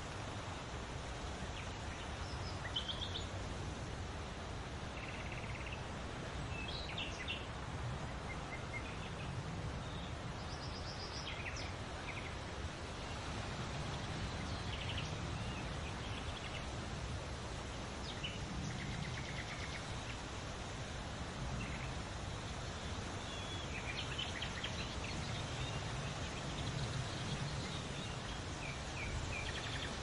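Open-country outdoor ambience: a steady low rumble and hiss, with short high bird chirps every few seconds.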